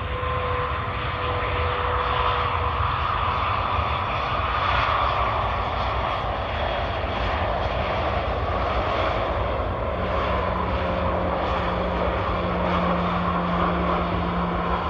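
LATAM airliner's jet engines running: a steady loud rush of engine noise with a deep rumble and faint steady whining tones that drift in pitch.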